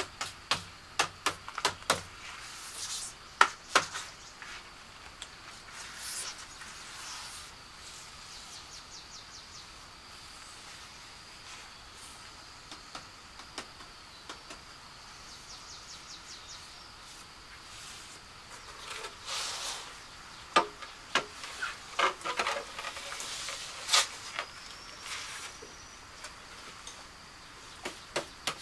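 Sharp knocks and clicks of hand work with tools and building materials, in a flurry at the start and another about twenty seconds in, over a steady high insect trill.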